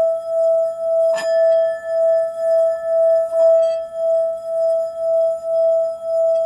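Singing bowl ringing with a steady hum that pulses about twice a second. About a second in it is struck, adding a higher ring that fades over a couple of seconds.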